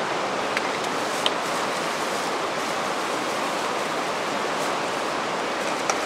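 Steady rushing of a flowing stream, with a couple of faint light clicks about a second in.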